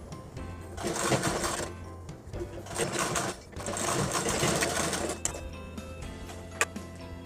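Sewing machine stitching piping onto a blouse neckline in three short runs of a second or so each, stopping between runs, with a single click near the end.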